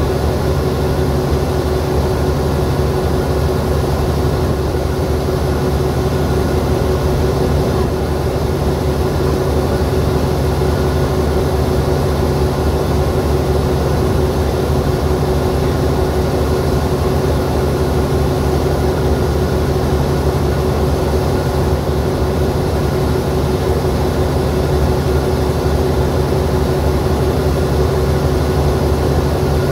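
Alsthom AD24C diesel-electric locomotive idling at standstill: a steady, unchanging engine hum with low tones.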